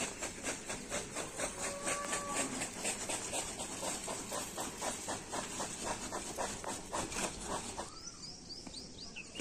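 An insect chirping in a steady fast pulse, about four pulses a second, which stops near the end; a few short bird chirps follow.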